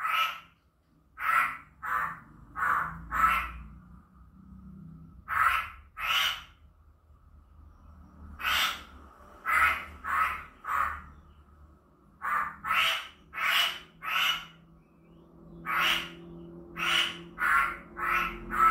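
Poksay hongkong (masked laughingthrush) giving short, harsh calls in runs of two to five, about two calls a second, with pauses of one to two seconds between runs. A faint low hum sits underneath.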